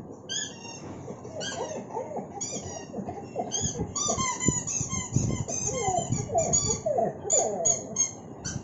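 A squeaky dog toy squeaked over and over in quick, short squeaks, with a puppy's whines or whimpers rising and falling underneath from about a second and a half in.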